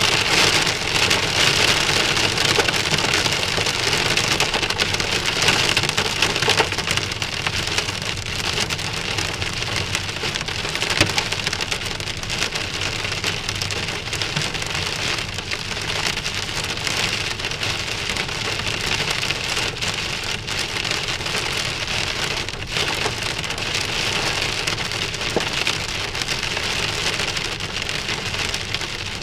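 Heavy rain beating on a car's windshield and roof, heard from inside the car, a dense patter of separate hits.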